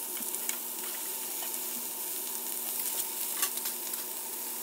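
Thin slices of marbled beef sizzling in a hot frying pan as they are laid in with tongs: a steady hiss with scattered small pops and crackles, over a faint steady hum.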